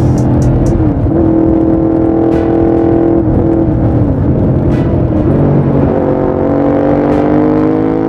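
Honda RC51's 1000cc V-twin engine running through its exhaust while riding at speed. The engine note dips briefly and recovers about a second in, again around three seconds in and just past five seconds, then climbs steadily through the last two seconds as the bike accelerates.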